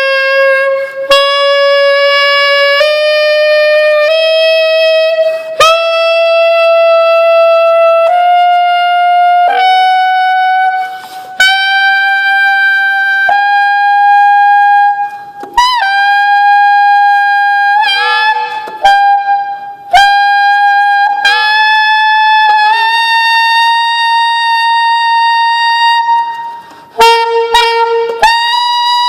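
1961 Selmer Mark VI saxophone playing a slow upward series of long held notes. The notes climb step by step about an octave into the top of its range, each held a second or two with short breaks between.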